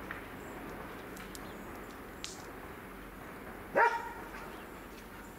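A dog barks once, short and loud, about four seconds in, over a steady low background hum.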